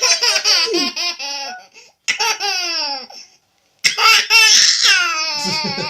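Small child laughing hard in three bouts of pulsing giggles, each sliding down in pitch, set off by her father's sneezing.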